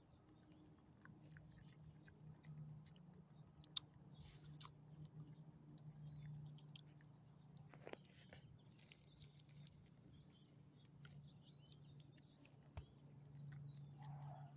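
Faint chewing and licking by a small dog eating bits of chicken: a scatter of soft clicks and smacks, over a steady low hum.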